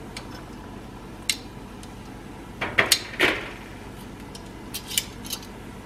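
Metal kitchen tongs clicking and clinking against a skillet as chicken is moved in the sauce: one click about a second in, a cluster of louder clanks around three seconds with a short ring, and a few lighter taps near the end.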